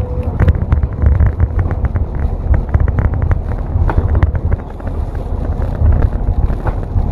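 City bus driving, heard from the front of the cabin: a heavy low rumble with wind buffeting the microphone and frequent short clicks and rattles.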